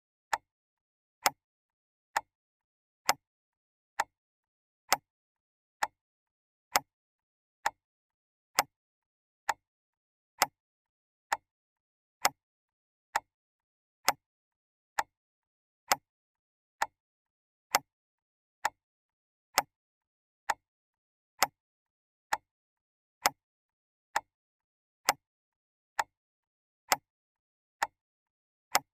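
A clock ticking steadily, one sharp tick a little under every second, with silence between the ticks.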